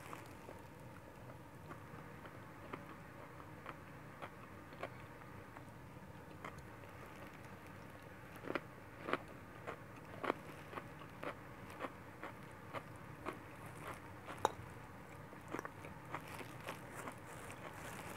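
A person chewing and eating stir-fried noodles with vegetables: soft wet mouth sounds with scattered short clicks, a few louder ones in the middle.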